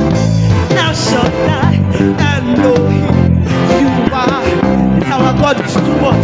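Gospel praise band playing, with a prominent electric bass line moving under singing voices.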